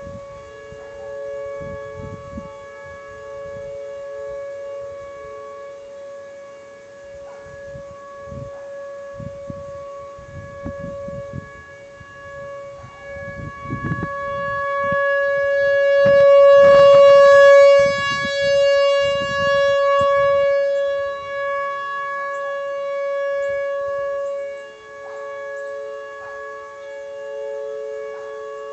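Outdoor tornado warning siren sounding a steady, unbroken chord of two close pitches during a test. It swells to its loudest about halfway through and then falls back.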